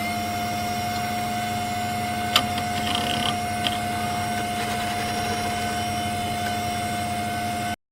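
A machine's steady whine, held at one pitch after winding up, with a low hum beneath it. There is a sharp click about two and a half seconds in and a few faint ticks after it, and the sound cuts off suddenly near the end.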